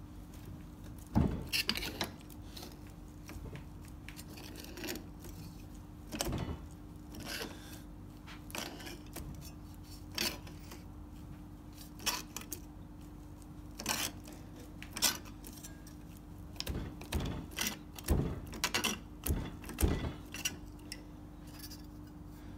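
Hand-lever METZ shrinker-stretcher with its shrinking jaws working a 1 mm mild steel flange: a string of sharp metallic clicks and clunks, one every second or two, as the handle is pulled and released and the jaws grip and shrink the steel. A steady low hum runs underneath.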